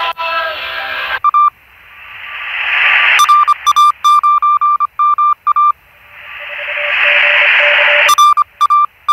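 Shortwave broadcast audio from the small Si4732 receiver's speaker cuts off about a second in. The receiver, in USB mode on the 15-metre amateur band, then plays a Morse code signal: one steady beep keyed on and off in dots and dashes. Hiss swells up in the pauses between the sendings.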